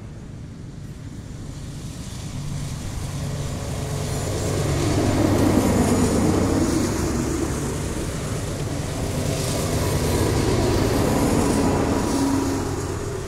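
Rear-end BNSF diesel locomotives of a double-stack freight train passing close, engines running under load, with wheels rumbling on the rail. The sound swells twice as the units go by, then falls away near the end as the train clears.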